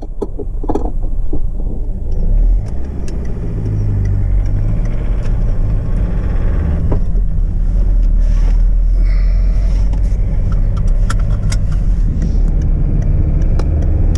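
Car engine and road noise heard inside the cabin while driving: a steady low rumble that builds over the first few seconds and then holds, with a few clicks and rattles near the start.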